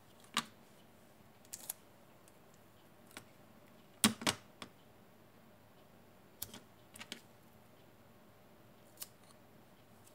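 Scattered sharp clicks and taps of a small plastic USB charger housing being handled and pressed together, the loudest a quick double click about four seconds in.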